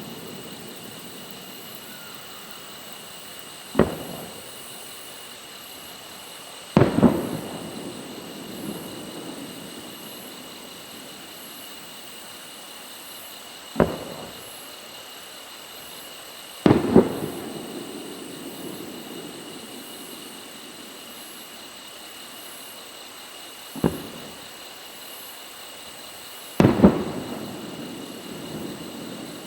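Aerial fireworks booming in three pairs about ten seconds apart. In each pair a sharp bang is followed about three seconds later by a louder double bang with a long rolling echo.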